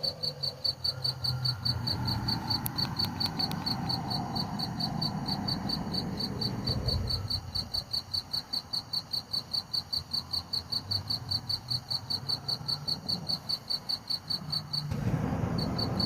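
A bird's single high-pitched note repeated rapidly and evenly, several times a second, with a short break near the end, over a low background rumble.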